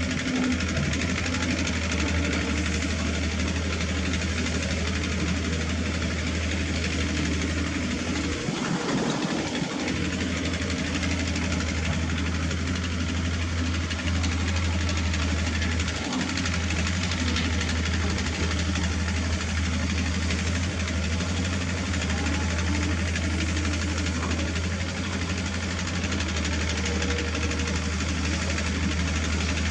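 Heavy machinery diesel engine running steadily, dropping off briefly about nine seconds in and again for a moment a few seconds later.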